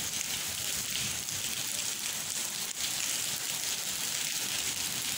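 Steady rain falling on wet paving: an even hiss.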